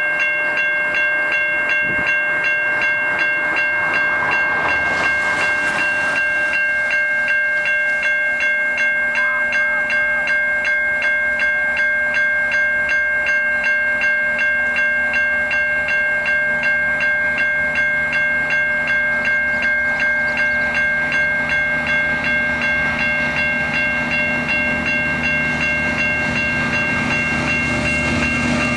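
Level crossing warning bell ringing steadily in rapid, evenly repeated strokes. A low engine drone from an approaching diesel locomotive builds in the last several seconds.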